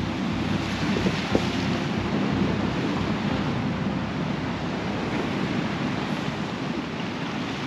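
Sea surf breaking and washing over rocks, a steady rushing with wind on the microphone, and a couple of small clicks about a second in.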